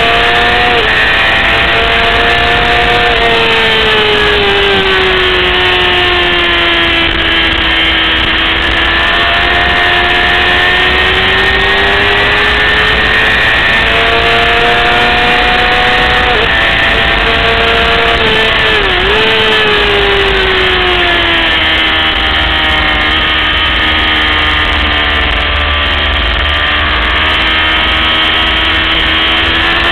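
600cc racing motorcycle engine running hard at high revs, its note slowly rising and falling with throttle through corners, with a brief sharp dip a little past halfway, over a steady low rumble.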